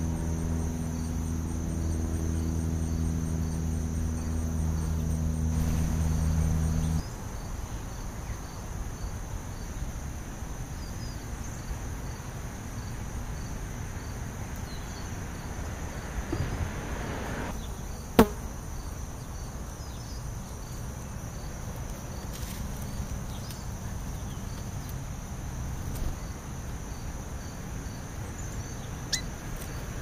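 Steady high-pitched trilling of insects on a late-summer lawn. A low machine hum is the loudest sound at first and cuts off suddenly about seven seconds in. There is a single sharp click just past the middle.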